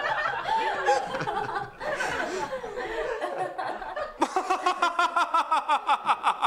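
Laughter at a joke: chuckling at first, then from about four seconds in a run of quick, even ha-ha pulses, about five a second.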